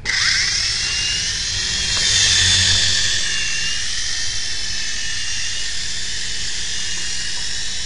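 Small RC helicopter's electric motor and rotor spinning up, then running with a steady high whine that wavers slightly in pitch. Its broken rotor blade is patched with twist ties.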